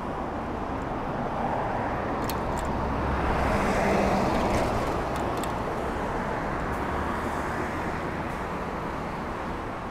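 Road traffic noise with a car passing, swelling to its loudest about four seconds in and then fading away.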